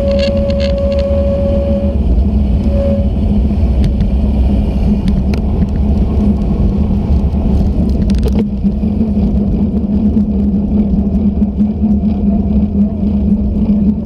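Steady rumble of wind and tyre noise picked up by a bicycle-mounted GoPro riding on a wet road. A steady whistling tone runs over the first two seconds and briefly again about three seconds in.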